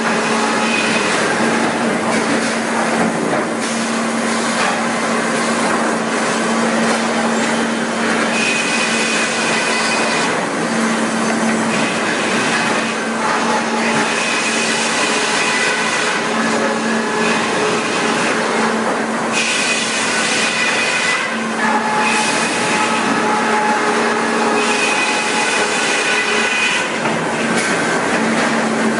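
Sawmill machinery running: a steady, loud mechanical din with a constant hum, and higher whining tones that come and go every few seconds.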